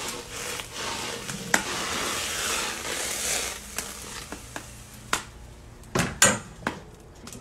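Hot mustard oil sizzling in a cooking pot, fading after about three and a half seconds, then several sharp knocks, the loudest about six seconds in.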